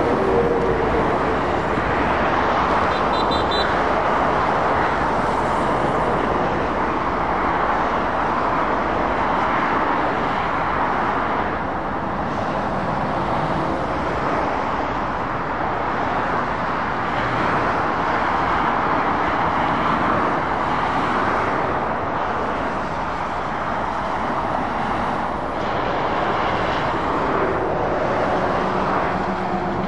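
Continuous road traffic noise from cars, vans and lorries passing on a dual carriageway: mostly tyre noise, swelling and easing as vehicles go by. A lorry's low engine hum comes up near the end.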